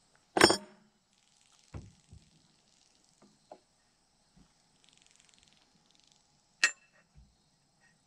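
Metal tools and fittings clinking and knocking while a propane regulator assembly is put back together. A loud, sharp clink about half a second in and another near the end, with a few lighter knocks and a brief scrape between.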